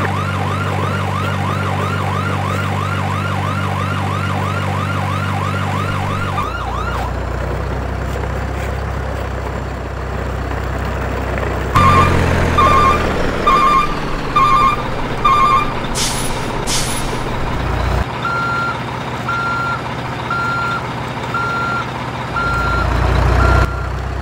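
Truck sound effects: a low steady engine drone under a fast yelping siren, which stops about a quarter of the way in. Then come short clusters of beeps, two brief high hisses, and from about three-quarters through, reversing beeps a little under once a second.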